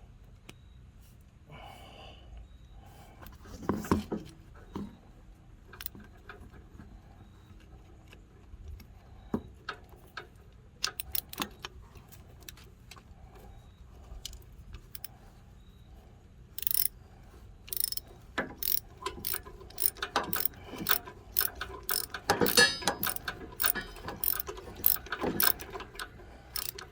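Metal clicking and clinking from hand work on a snowblower's auger control cable fitting: a knock about four seconds in, scattered clicks, then a quick run of sharp clicks over the last ten seconds.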